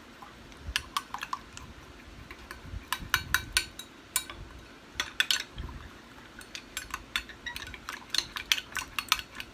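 A metal spoon stirring powdered gelatin and a little water in a small glass bowl, clinking against the glass in irregular runs of quick taps. This is the gelatin being hydrated (bloomed).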